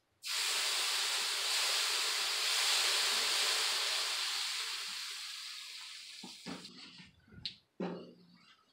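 Water squirted from a squeeze bottle onto a hot steel flat-top griddle, hissing loudly into steam as it quick-cools the cooking surface; the hiss starts suddenly and slowly fades over about six seconds. A few knocks and clunks follow near the end.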